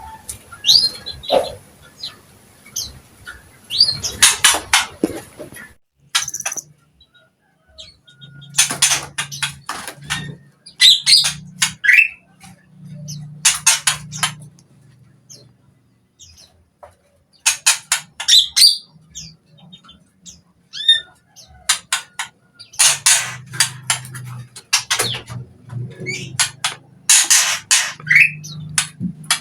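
Cucak ijo (green leafbird) singing vigorously, in the 'gacor' style, in repeated bursts of fast rattling chatter mixed with whistled slides, with short pauses between phrases.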